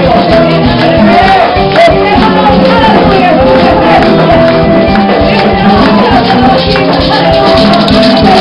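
Loud live Latin-style praise music: maracas shaking to a steady beat over conga drums, with a group singing.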